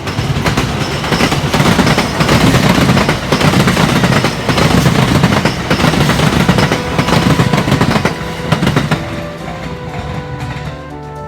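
Electric train passing close by over a level crossing, its wheels clacking rapidly over the rail joints. The loud passage dies away about nine seconds in.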